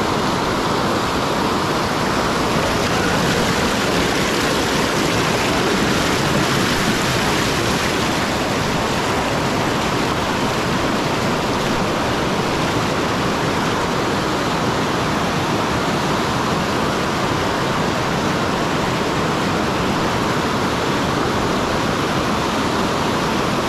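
River water rushing over shallow stepped rock ledges close to the microphone: a loud, steady rush of whitewater.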